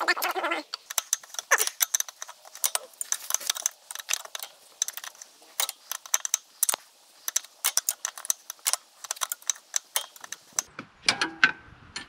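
Wrenches and metal hand tools clicking and clinking irregularly against metal fittings while the fuel filter assembly is worked on, with the engine off.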